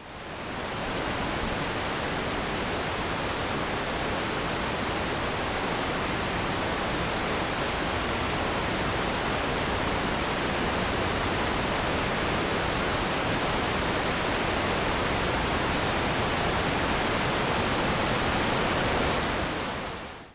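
Steady hiss of static, the noise on the audio track of an analog FPV video recording, fading in at the start and out near the end.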